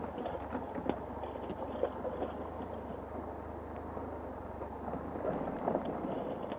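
Triumph Explorer XC adventure motorcycle's three-cylinder engine running at low, steady revs while the bike picks its way slowly over rough, rocky ground. Scattered knocks and clatter come from the tyres and suspension hitting rocks, two sharper ones in the first two seconds.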